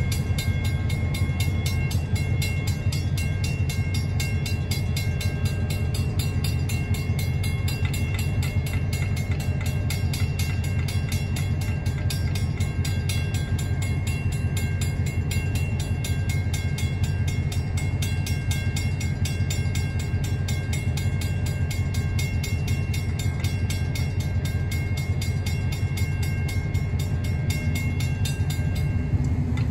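Western-Cullen-Hayes mechanical railway crossing bell ringing in a fast, even stream of strikes, over a steady low rumble from the passing train. The bell stops near the end.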